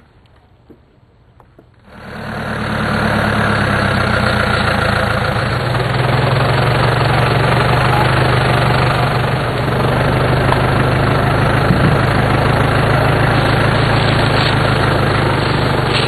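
A vehicle engine running steadily with a low, even drone and a lot of noise over it, coming in abruptly about two seconds in after near quiet.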